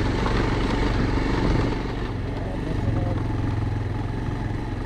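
Motorcycle engine running steadily at moderate revs while riding slowly up a rough stony track, with some rattle over the stones.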